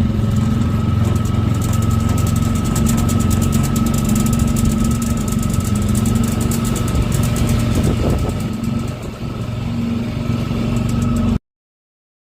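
Jon boat's outboard motor running steadily at cruising speed, a constant low drone with a faint higher whine. The sound cuts off suddenly near the end.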